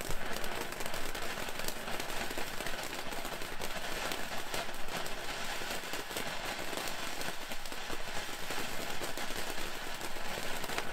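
Royal Party ground fountain firework spraying sparks: a steady hiss full of fast crackling pops.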